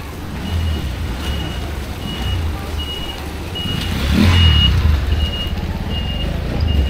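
Motorized cargo tricycle's engine running as it passes close by, loudest about four seconds in. Under it an electronic warning beeper keeps sounding one high beep at a time, about four beeps every three seconds.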